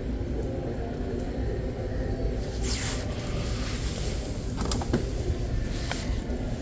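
Steady low rumble of store background noise, with a brief rustle about three seconds in and a few light clicks near the end.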